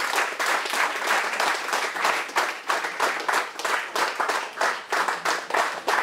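Audience applauding: many hands clapping in a dense patter that thins a little near the end.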